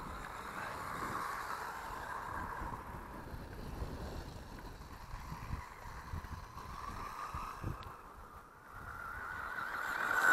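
Small electric radio-controlled cars' motors and drivetrains whining as they race over grass, the pitch and loudness rising and falling with the throttle. Near the end one comes close and swells to the loudest, higher whine.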